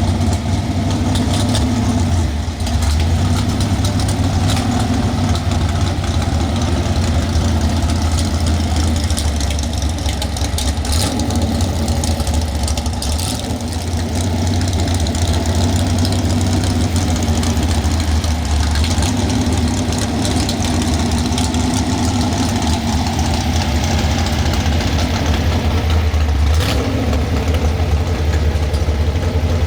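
A large engine idling steadily with a low, even rumble and no revving.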